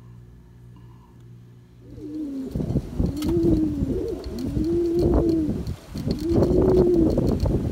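Domestic pigeons cooing: a series of repeated coos, each rising and falling in pitch, starting about two seconds in after a faint low hum.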